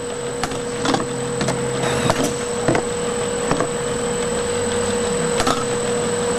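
Packaging line running: the overcapper, labeler and conveyor give a steady hum with a constant high whine. Sharp clicks and knocks, several in the first three seconds and one more near the end, come from the capped plastic tubs moving along the conveyor.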